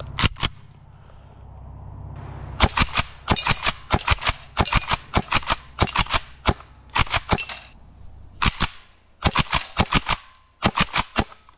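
Airsoft pump-action shotgun fired twice in quick succession, then, after a pause of about two seconds, fired in a long, fast string of sharp snaps with the pump cycled rapidly between shots.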